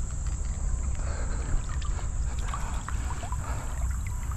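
Water sloshing and splashing around a person wading waist-deep through a weedy creek, with scattered small splashes over a steady low rumble.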